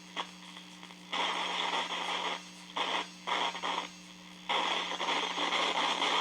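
Static hiss from a small battery-powered world-band radio pressed against an aluminium screen, cutting in and out in irregular bursts over a steady low hum.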